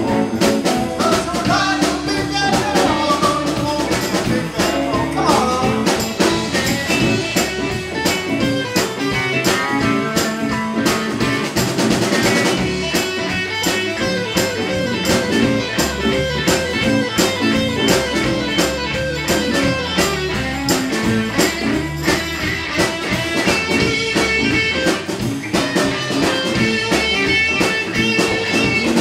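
Live blues band playing an instrumental passage with electric guitars, bass and drum kit, featuring a lead electric guitar solo over a steady beat.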